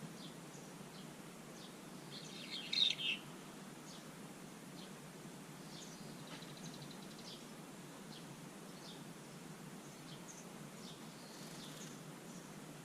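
A bird gives a short loud harsh call, about three seconds in, as two quick notes. Faint distant chirping of other birds runs under it.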